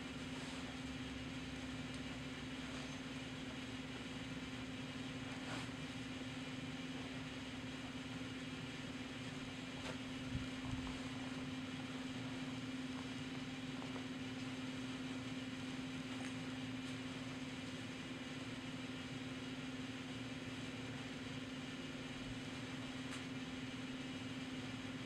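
A steady low electrical or mechanical hum over even background hiss, with a couple of faint knocks about six and ten seconds in.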